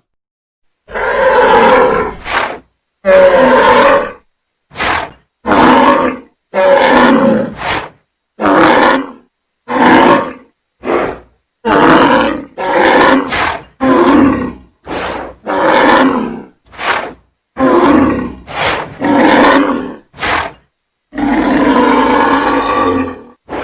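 Imagined dragon calls: a string of about fifteen roars and growls, each short and cut apart by brief silences, with a longer roar near the end.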